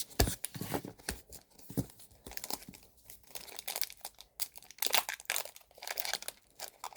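A foil trading-card booster pack being crinkled and torn open, an irregular run of sharp crackles.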